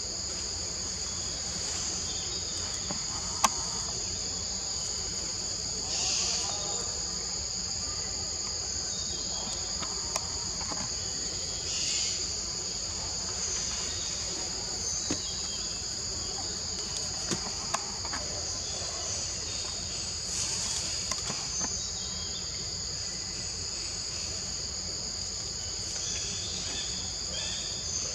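Steady, high-pitched chorus of forest insects, an unbroken two-toned drone, with a few sharp clicks and short rustling noises scattered through it.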